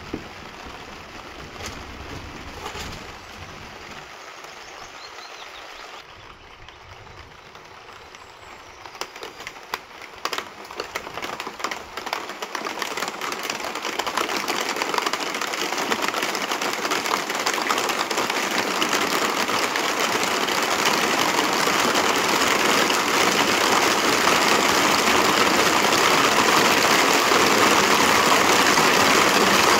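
Thunderstorm rain starting as scattered drops about ten seconds in and building steadily into a heavy downpour, a dense hiss of drops that grows louder to the end.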